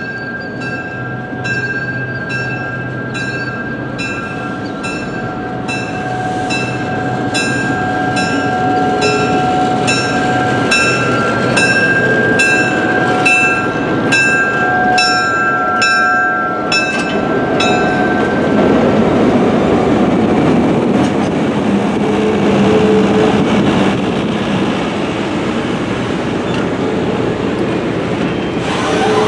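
Atlantic Coast Line E3 diesel passenger train approaching and passing, with a bell ringing steadily over the diesel engine for roughly the first two-thirds. The bell then stops, and the passenger cars roll by with a louder, continuous rumble of wheels on rail.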